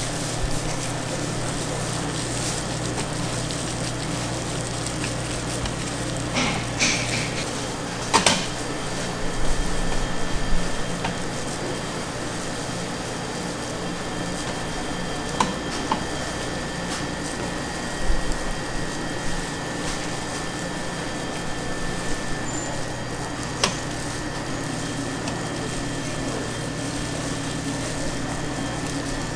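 Steady hum of food-stall kitchen equipment, with a few light knocks and clatters of food preparation scattered through it.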